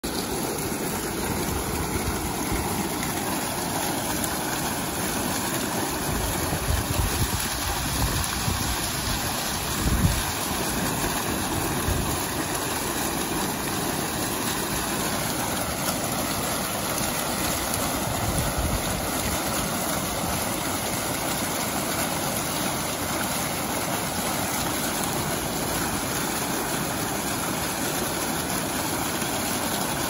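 A fountain's foaming water jets splashing steadily into their basin, a constant rush of falling water. Wind on the microphone adds low rumbles a few times around the middle.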